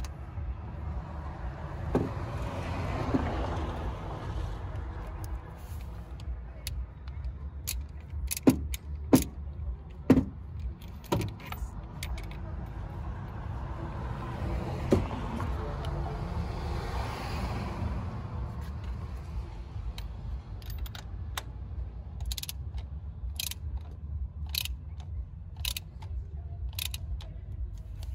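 Socket ratchet working a bolt on a car engine: a few loud metal clanks of the tool a third of the way in, then repeated ratchet clicks through the later part, over a steady low rumble.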